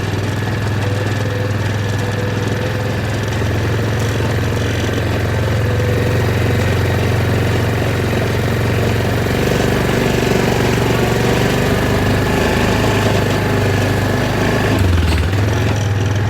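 Quad bike (ATV) engine running steadily as it drives along slowly, towing a loaded trailer, with a brief change in the engine sound near the end.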